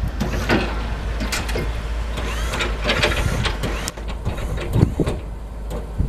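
A pickup truck's engine running steadily, with irregular crunching and scraping strokes of snow over it.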